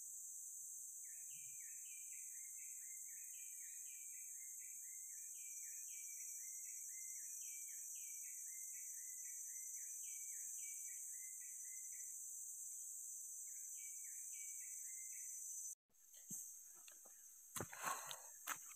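Tropical forest ambience: a steady high-pitched drone of insects, over which a bird sings a long run of quick repeated chirping phrases, pausing briefly and singing again. Near the end the sound breaks off and a few knocks and a rustle follow.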